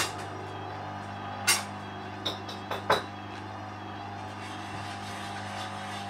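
Hoover Dynamic front-loading washing machine's motor and drum running with a steady hum, with several sharp knocks in the first three seconds from the unbalanced load thumping in the drum, then only the hum. The machine is struggling with a very unbalanced load and a suds lock.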